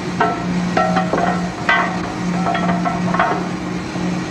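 Drill-floor noise of an offshore oil rig: about six metallic clanks that ring briefly, from steel tools and drill pipe being handled at the rotary table, over a steady low machinery hum and a hissing background.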